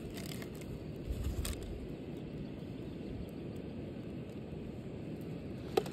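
Faint clicks and taps of a hand handling a plastic bottle over a steady low background rumble, with one sharper click near the end.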